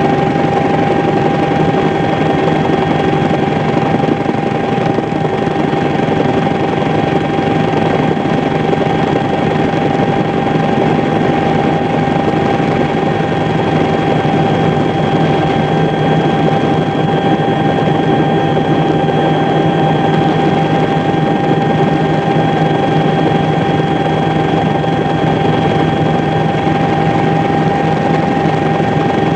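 Steady, loud engine drone with a constant whine over it, unchanging throughout.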